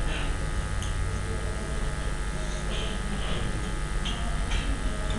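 Steady low electrical hum with hiss, the background noise of the recording microphone, with a few faint short soft sounds over it.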